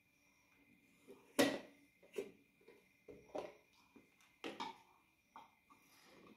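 Irregular knocks and light clinks of kitchen things being handled: a plastic lid lifted and set down on a stone counter and a plastic spoon against a small glass bowl. The sharpest knock comes about a second and a half in, another near four and a half seconds.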